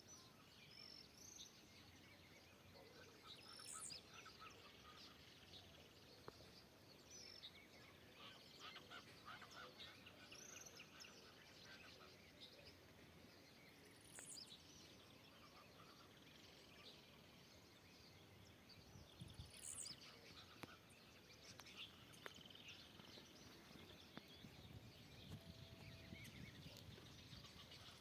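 Faint chorus of wild birds in woodland: scattered short chirps, whistled notes and quick high glides from several birds calling at once, over a soft background hiss.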